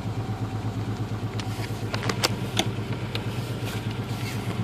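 Ford Ranger's 2.9-litre V6 idling roughly, its steady hum pulsing unevenly. A few sharp clicks stand out about two seconds in.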